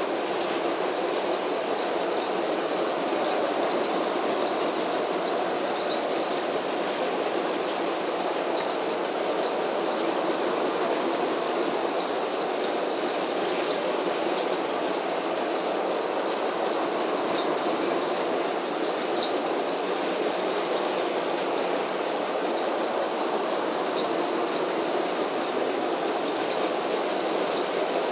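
Lego train running steadily around a circle of plastic track: a continuous whirring rumble from its motor and wheels, with a few faint clicks.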